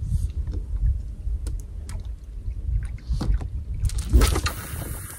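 Wind buffeting the microphone with a steady low rumble, with a few knocks of rod handling and a swish about four seconds in as a feeder rod is cast.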